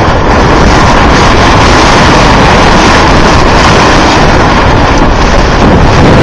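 Loud, steady rumble of wind buffeting the microphone out on a boat on open water.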